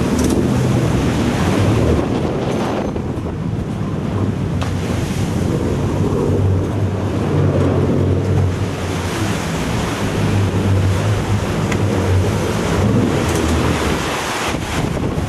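Sport-fishing boat under way: a steady low engine drone under wind buffeting the microphone and the rush of the churning wake.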